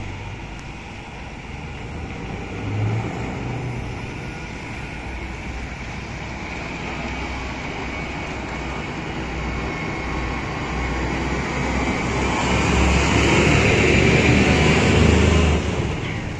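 Scania R500 V8 diesel truck engine with an open-pipe exhaust, running under way and growing steadily louder as the truck approaches. The sound peaks near the end, then drops suddenly about a second before the end.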